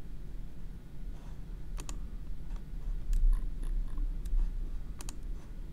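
Computer mouse clicks, a handful of short sharp ones, some in quick pairs, over a steady low hum.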